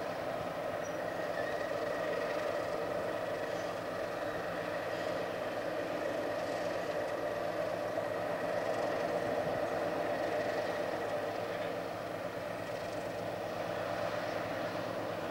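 EWS Class 60 diesel locomotive's Mirrlees eight-cylinder engine running with a steady drone as it slowly hauls a train of hopper wagons.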